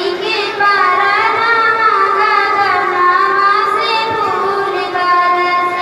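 A girl singing solo into a handheld microphone, holding long notes that glide slowly from one pitch to the next.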